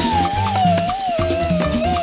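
Upbeat background music: a wavering lead melody over a bass line and a steady percussive beat.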